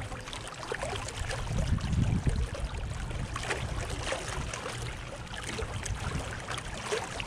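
Water splashing and gurgling along the hull of a Catalina 22 sailboat under sail, with wind rumbling on the microphone, loudest about two seconds in.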